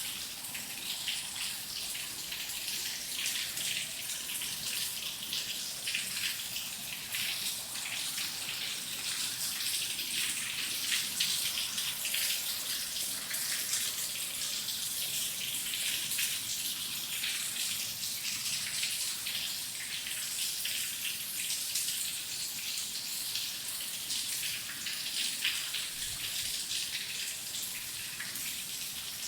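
Heavy rain falling steadily, a dense patter of drops without thunder.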